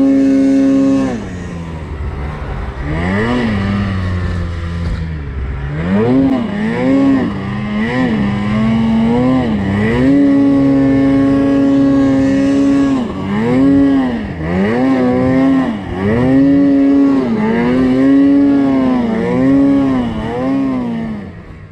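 Snowmobile engine under load in deep powder. It is held at high revs, drops about a second in, then rises and falls over and over in quick throttle blips, with a longer steady high stretch in the middle. It fades out at the very end.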